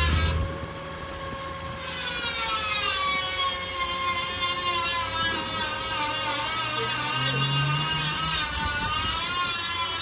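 Crane truck running, its engine and hydraulics making a steady mechanical whine that slides down in pitch a couple of seconds in, then holds with a slight waver.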